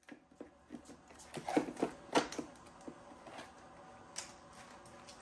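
Glass bottles and drink cans knocking and clinking against each other and the plastic walls as they are packed by hand into a hard cooler. It is a run of irregular knocks, the loudest about two seconds in.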